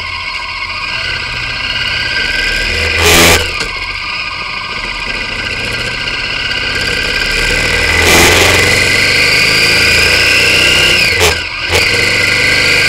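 V-twin motorcycle engine accelerating, heard from a camera mounted on the bike: its pitch and loudness climb, with two brief louder rushes of noise, and the pitch drops sharply about eleven seconds in at a gear change.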